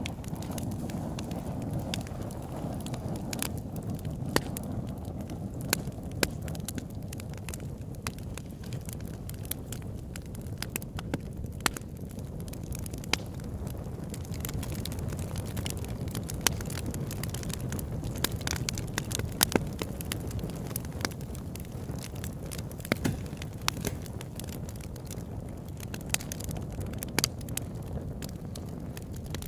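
Campfire burning: a steady low rumble of flames with frequent, irregular sharp crackles and pops.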